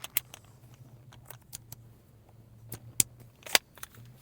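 Scattered sharp clicks and light taps from hands and a tool working on the truck's plastic dash trim, over a steady low hum.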